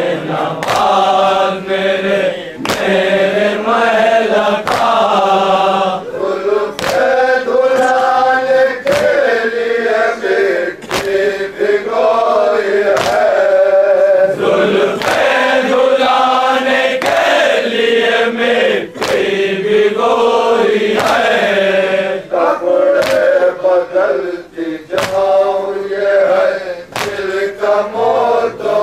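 Men chanting a nauha, a Shia Urdu lament, in unison, with sharp hand-on-chest strikes of matam landing together about once a second as a steady beat.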